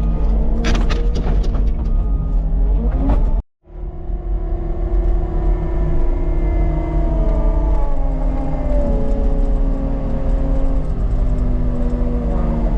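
CAT 299 skid loader's diesel engine running and revving under load, with a few sharp knocks in the first three seconds. The sound cuts out briefly about three and a half seconds in, then the engine carries on steadily with its pitch rising and falling.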